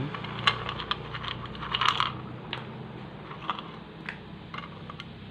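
Light clicks and taps of cinnamon sticks being picked off a ceramic plate and dropped into a wok of coconut milk, with a quick cluster about two seconds in and a few single ticks after.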